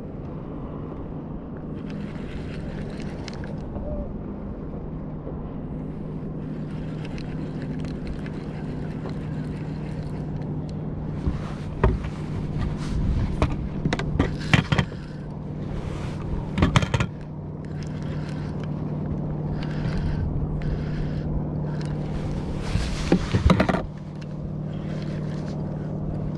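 A boat motor humming steadily under a rushing hiss. Sharp knocks and rattles come in a cluster past the middle and again near the end.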